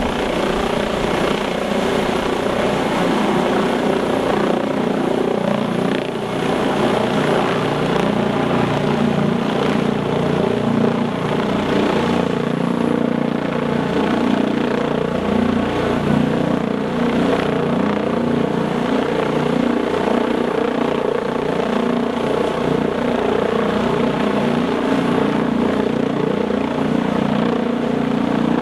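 Eurocopter EC155 helicopter running at a steady, even level, its rotor and twin-turbine sound unchanging.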